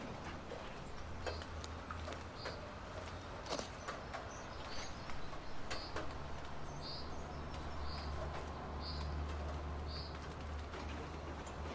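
A bird chirping repeatedly, short high chirps about once a second, over scattered sharp clicks and a steady low hum.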